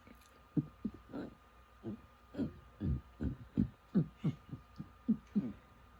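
A person burping in rapid succession: a string of short, low burps, each dropping in pitch, about two or three a second.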